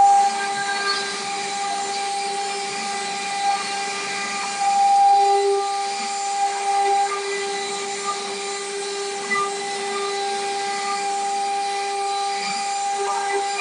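Stone CNC router spindle with water cooling, cutting into a stone slab: a steady high-pitched whine over a hiss of cutting noise. It swells louder for a couple of seconds about five seconds in.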